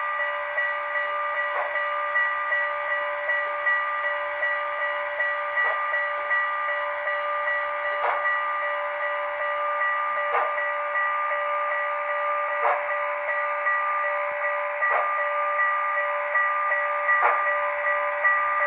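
ESU sound decoder in an HO-scale model of the Canadian National 6060 steam locomotive, playing steady steam chuffing and hiss from its speaker, with a steady tone underneath. A sharp click comes about every two seconds.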